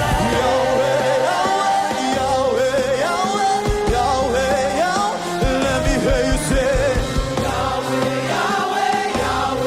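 Live worship music: voices singing a wordless, melismatic line over sustained keyboard chords, bass and drums, with a choir joining in.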